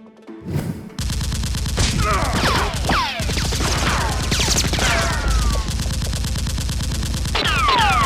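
Rapid automatic gunfire sound effect, starting about a second in and running on without pause, with repeated falling whistling tones over the shots.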